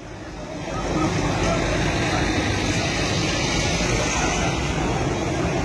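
Steady street noise, a running vehicle engine's rumble with a hiss over it, fading up over the first second and then holding level.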